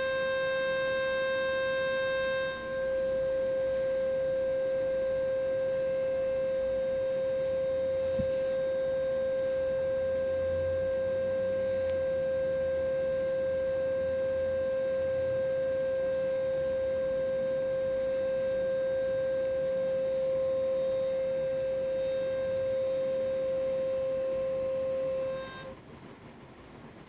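A steady, unchanging high-pitched tone, like a held electronic beep, with one brief break a few seconds in; it cuts off suddenly near the end.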